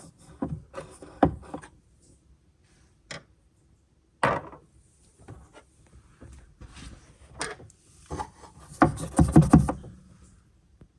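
Hands at work on a car's wiring loom and trim: irregular knocks, scrapes and rubbing, with a sharp knock about four seconds in and a louder flurry of quick knocks and rubbing near the end.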